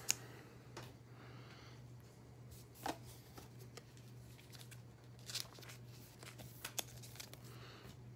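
Topps Chrome baseball cards being handled and slid against each other: soft rustling with a few short, sharp clicks, over a low steady hum.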